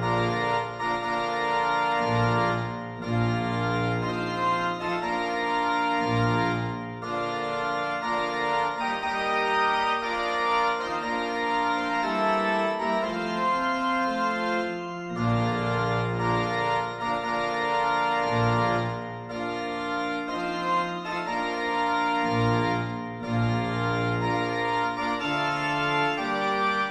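Organ music playing slow, held chords, with short breaks between phrases.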